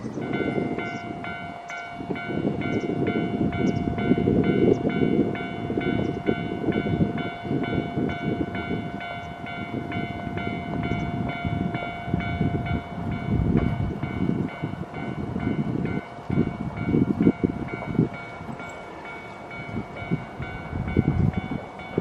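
Japanese level-crossing warning bell starting up just after the start and then ringing steadily in a fast repeating electronic clang, the alarm that a train is approaching while the barriers come down. A low, uneven rumbling noise runs underneath.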